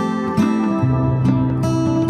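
Instrumental background music: plucked acoustic guitar notes ringing on over a steady low note.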